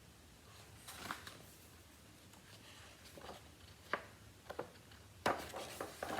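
A picture book being handled and its page turned: a few short, faint paper rustles and taps, the loudest a little past five seconds in.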